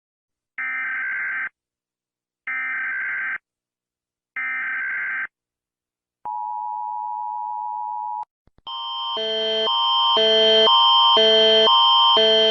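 Emergency Alert System tones: three short bursts of warbling header data, then about two seconds of the steady two-tone attention signal. A couple of seconds later a louder electronic alarm of repeating multi-note tones swells in, about two pulses a second.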